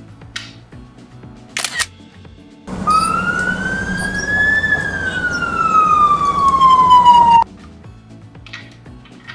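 Toy police car's electronic siren, set off after a sharp click: one slow wail that rises and then falls in pitch for about five seconds and cuts off suddenly. Quiet background music plays underneath.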